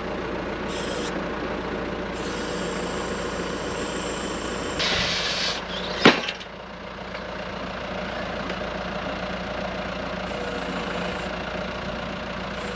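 Tractor diesel engine running steadily while driving a tractor-mounted hydraulic post driver. About five seconds in comes a brief hissing rush, then one sharp knock from the post driver about six seconds in.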